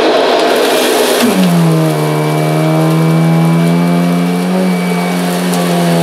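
Kirby Ultimate G upright vacuum cleaner running at full power with its brush roll on carpet. About a second in, its motor pitch drops and settles into a steady lower hum.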